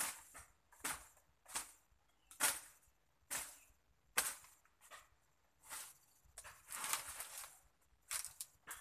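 Mandau (Dayak machete) chopping and slashing through weeds and undergrowth, about ten sharp cuts, roughly one a second.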